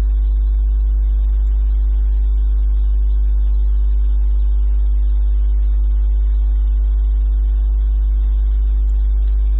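Steady low electrical hum with fainter overtones above it, unchanging throughout.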